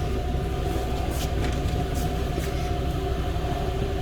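Steady low mechanical hum with a couple of constant tones, and a few faint ticks over it.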